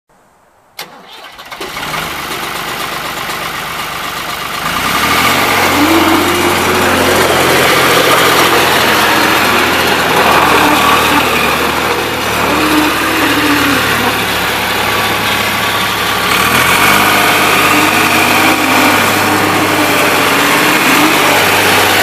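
New Holland L785 skid steer's engine starting about a second in, idling briefly, then running at higher throttle from about five seconds in as the machine drives across gravel.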